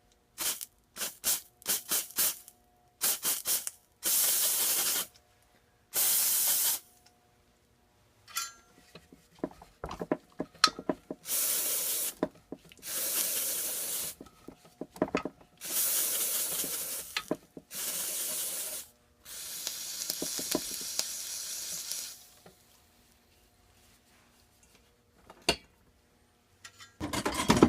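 Aerosol spray can hissing in repeated bursts, several short squirts and then longer sprays of a second or two, onto a seized crankshaft and blade adapter to cool the overheated, swollen shaft. A few light metal clicks sound between the sprays.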